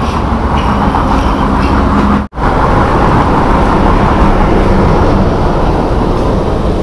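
Steady, loud rumble of road traffic, with heavy motor vehicles running close by. The sound cuts out for an instant about two seconds in.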